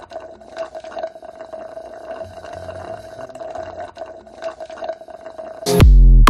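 A steady mid-pitched hum with faint crackling and hiss. About six seconds in, loud electronic music with a heavy bass beat cuts in.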